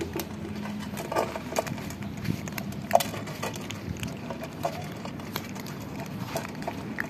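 Several cats crunching dry kibble from a shared dish: a scatter of irregular crisp clicks and crunches.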